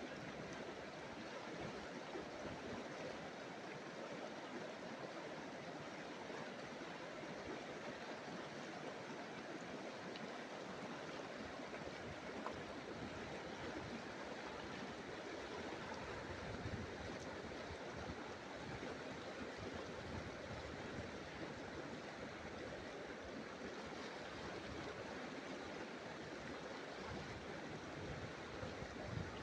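Shallow, fast river water rushing steadily over stones and riffles.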